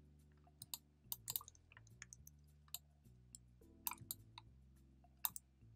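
Irregular computer mouse and keyboard clicks, about a dozen sharp clicks at uneven intervals, over faint background music.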